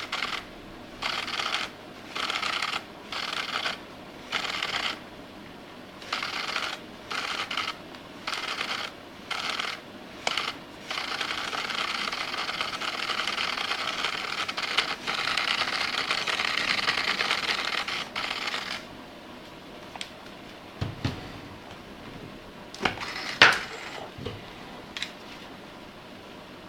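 Nissin Di622 Mark II speedlight's motorized zoom head buzzing in short bursts about once a second, then running without a break for about eight seconds, followed by a few clicks, one of them sharp. The uploader takes the zoom noise for a strange, abnormal one.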